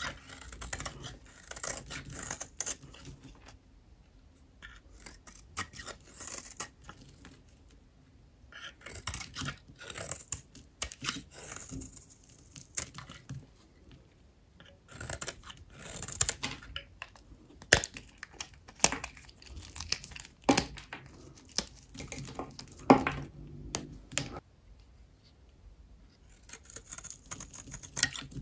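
A knife cutting through dry soap bars: spells of crunchy, crackling scraping, with a few sharp clicks, separated by short pauses.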